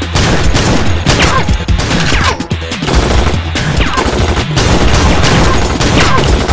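Film shootout gunfire: pistols and a rifle firing many shots in quick succession, over background music.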